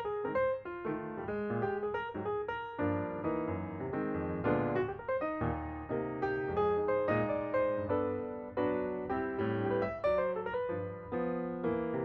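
Background piano music: a melody of struck piano notes over chords, played at a moderate pace.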